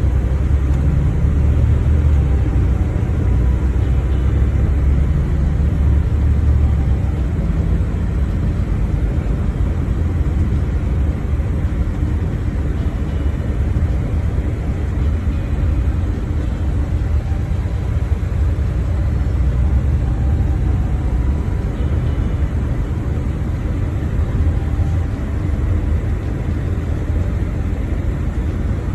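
Steady low rumble of a vehicle heard from inside while riding, engine and road noise without a break.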